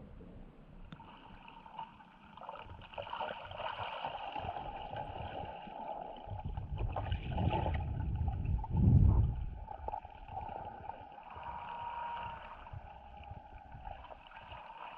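Water sloshing and gurgling, with a louder low rush about nine seconds in.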